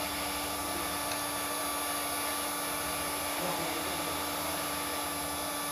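Electric heat gun running steadily, a constant rush of blown air with a faint steady hum, warming arrow shafts so they can be bent straight.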